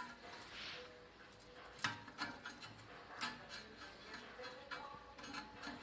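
Homemade spot welder firing: a few sharp snaps at irregular intervals, the loudest about two seconds in.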